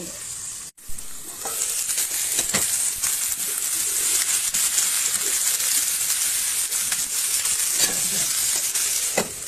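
Food sizzling as it fries in a hot pan, a steady hiss with the short clicks and scrapes of stirring. The sound cuts out briefly under a second in.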